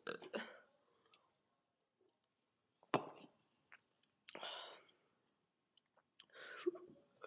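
Quiet mouth and breathing sounds from a person: a few short breathy exhales and small mouth noises, with a sharp click about three seconds in.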